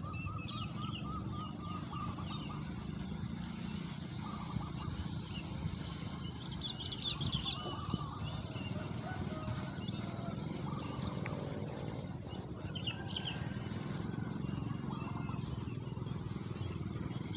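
Wild birds chirping and twittering in many short calls, with a steady high-pitched whine and a low background rumble under them.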